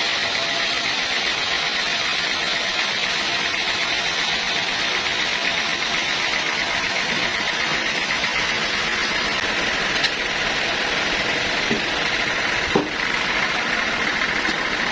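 Sawmill machinery running steadily with a constant mechanical whir, and two short sharp knocks in the second half.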